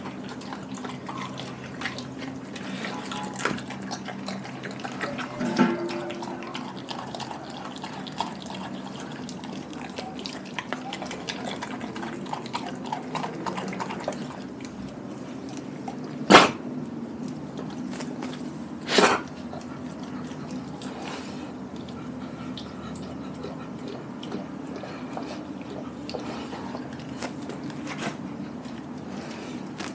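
A Doberman chewing a whole raw chicken: wet, smacking chewing with small crackles of meat and bone. About halfway through come two louder sharp cracks, a couple of seconds apart.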